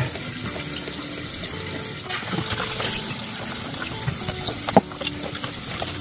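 Kitchen tap running a steady stream of water into the sink, with one sharp click just under five seconds in.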